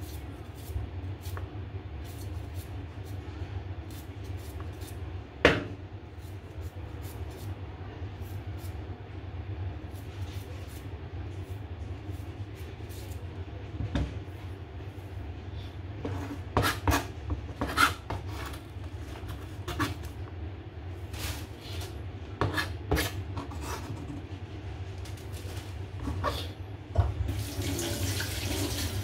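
Kitchen knife slicing fresh ginger on a plastic cutting board: scattered knocks and taps of the blade on the board over a steady low hum. Near the end a tap starts running with a steady rush of water.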